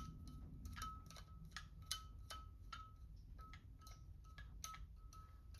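Faint, irregular small metallic clicks and ticks of a screwdriver working a carburetor jet into an angled threaded hole, the threads not yet catching.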